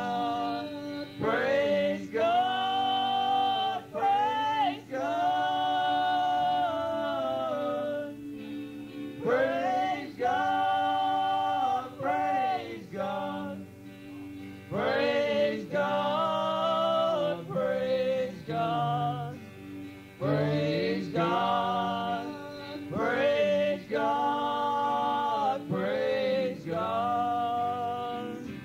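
Singing with instrumental accompaniment, in sung phrases with long held notes and short breaks between them.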